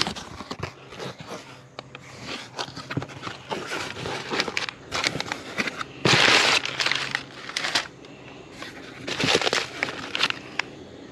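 Crumpled kraft packing paper rustling and crackling as a hand digs through a cardboard shipping box, in uneven handfuls, with the loudest crunches about six seconds in and again about nine seconds in.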